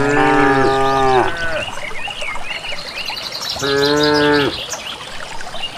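Cattle mooing: a long low moo at the start, falling in pitch as it ends, and a second moo about four seconds in. Small birds chirp between the moos.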